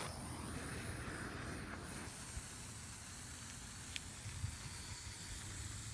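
Steady hiss of a propane torch flame lighting a potassium nitrate and Oreo-cookie powder mixture, which is burning only weakly. The hiss is strongest for the first two seconds, then fainter.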